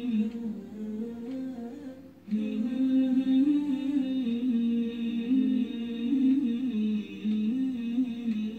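Background music: a voice humming a slow melody without words, with a brief break about two seconds in.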